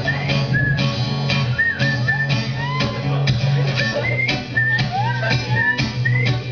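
Acoustic guitar strummed in a steady rhythm, with a high wordless melody sliding up and down in pitch over it.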